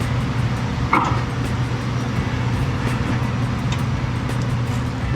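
A steady low mechanical hum, with a few light clicks and a sharper knock about a second in.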